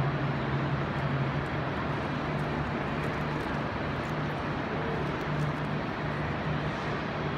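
Steady railway station background noise: a broad rush with a low drone underneath that fades in and out.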